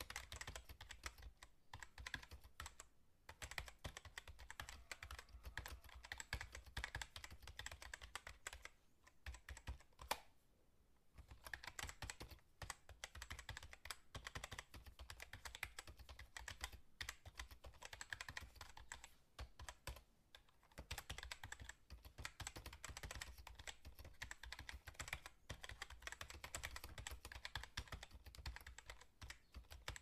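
Fast typing on a computer keyboard: a dense, irregular run of key clicks, with short pauses about three seconds in, around ten seconds in after one louder keystroke, and about twenty seconds in.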